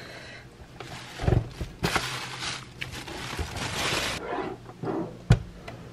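Packaging being pulled off the back of a waffle maker. A knock comes about a second in, then a few seconds of scratchy rustling and scraping, and a sharp knock near the end.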